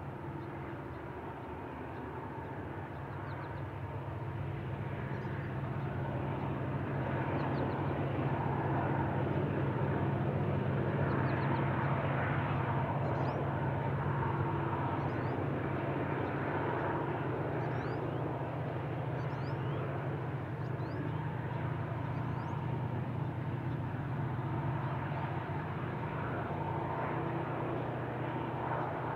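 Distant diesel-electric freight locomotives hauling a coal train: a steady engine drone with the rumble of the train. It grows louder over the first several seconds as the train draws nearer.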